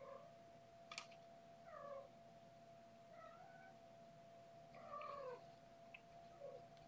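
A cat meowing faintly: a string of short meows, most falling in pitch, a second or two apart. A single sharp click comes about a second in.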